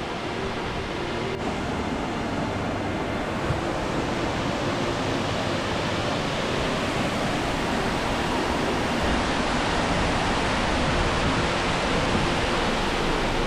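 Steady rush of a waterfall's falling water, growing slowly louder.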